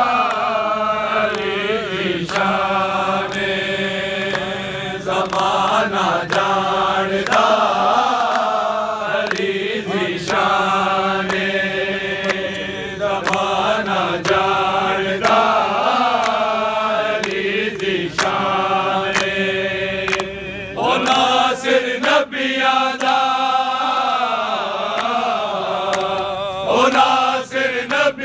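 A group of men chanting a devotional manqabat in praise of Imam Ali together, sustained sung lines with held notes, continuing without a break.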